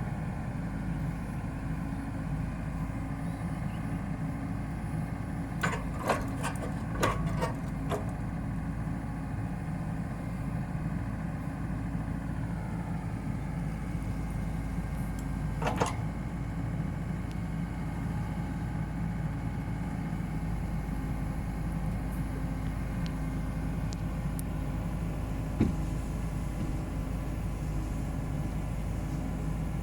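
Komatsu PC78UU excavator's diesel engine running steadily, with a pitched whine that dips slightly in pitch about halfway through. Several sharp knocks come about a fifth of the way in, then single knocks around the middle and near the end.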